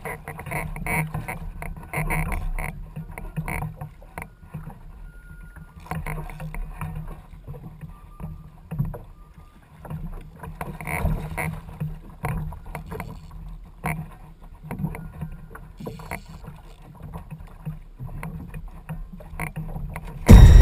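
Choppy water slapping and splashing against a plastic kayak hull, with irregular knocks, picked up through a GoPro's waterproof housing.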